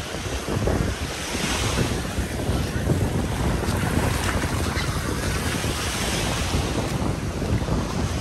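Sea surf washing onto a beach, with wind buffeting the microphone in a steady low rumble.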